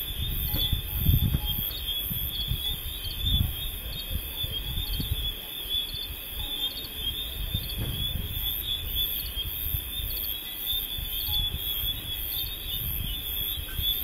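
Insects chirping in a steady, regularly pulsing chorus, over low rumbling noise.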